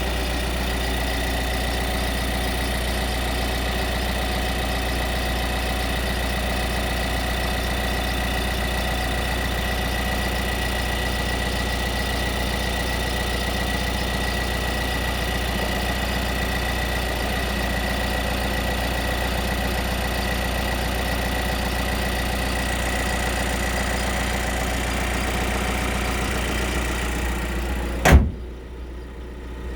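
Skoda Octavia IV running at idle: a steady engine hum with a steady high-pitched tone over it. About 28 s in there is one sharp knock, after which the sound goes muffled and quieter.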